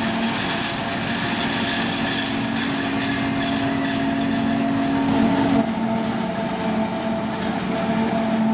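John Deere 7450i self-propelled forage harvester chopping maize, with a John Deere 7250R tractor and silage trailer running alongside: a steady machine drone with a steady whine over it. The whine changes pitch abruptly about five and a half seconds in.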